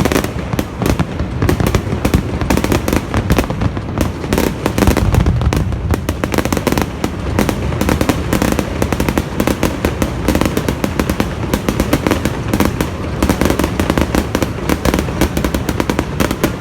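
Aerial fireworks going off in a dense, continuous barrage of bangs and crackles, many bursts a second.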